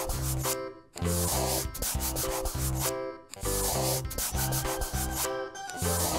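Scratchy pencil-on-paper drawing sound effect over light background music with bass notes. Both stop briefly twice, about a second in and again about three seconds in.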